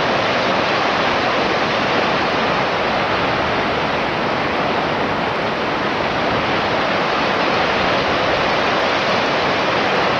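Missouri River floodwater rushing steadily over a washed-out railroad track, a constant even hiss with no change in level.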